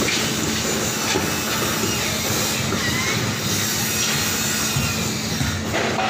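Heavy construction machinery running: a steady engine drone with a constant low hum, and faint metal squeals about two and a half seconds in.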